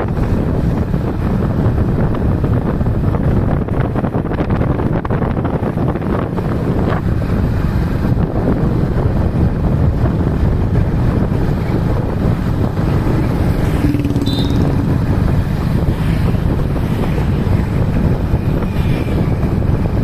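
Heavy wind buffeting the microphone of a camera moving along a road, with the low rumble of travel underneath.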